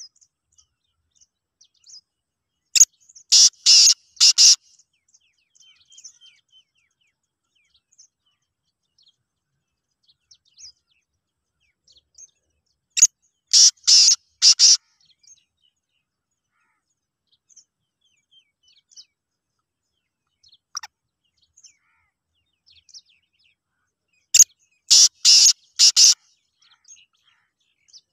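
Male black francolin calling three times, about ten seconds apart, each time a loud phrase of about five quick notes lasting under two seconds.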